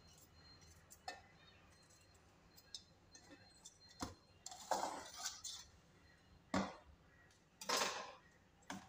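Kitchen handling sounds: a steel knife knocking and scraping against a steel mixer-grinder jar, with scattered sharp clinks. A couple of brief scraping clatters, the loudest near the end as a bowl is set down on the counter.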